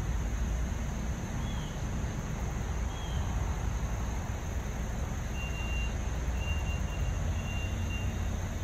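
Steady low rumble of traffic on a main road. In the second half a vehicle's reversing beeper sounds about once a second. Two short high chirps come about a second and a half and three seconds in.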